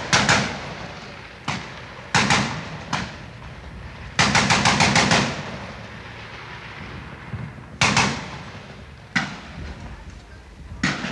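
Gunfire in a street riot: scattered single shots, each with an echoing tail, and about four seconds in a rapid burst of about eight shots lasting roughly a second.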